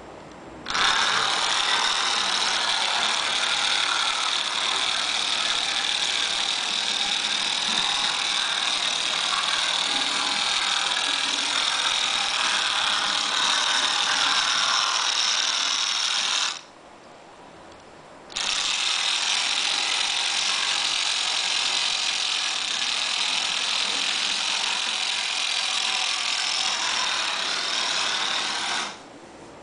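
Vintage Rivarossi Edison model tram's small electric motor and gears running steadily with a high whine. It starts about a second in, cuts out for about two seconds around the middle, then runs again and stops shortly before the end.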